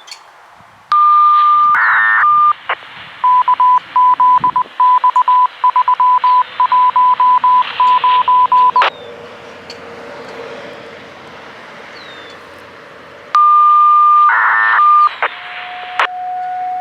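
Radio receiver putting out siren-activation signalling: a steady beep and a warbling chirp, then groups of rapid short beeps for about five seconds, then hiss. The steady beep and chirp come again near the end. Right at the end the siren begins with a low steady tone.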